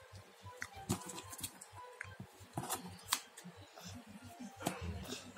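A plastic-wrapped, taped cardboard parcel being handled and opened: scattered sharp clicks and taps, with a longer stretch of crinkling near the end.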